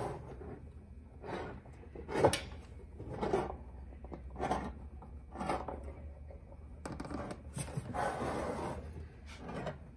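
Key opener peeling the sealed metal tear strip off a military ammunition spam can: metal scraping and creaking in short strokes about once a second, with a sharp click a little past two seconds in.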